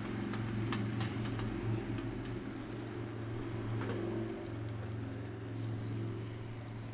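A steady low mechanical hum with a few light metal clicks over it: a fork tapping and scraping on the flat steel griddle top as it stirs egg, mostly in the first second or two.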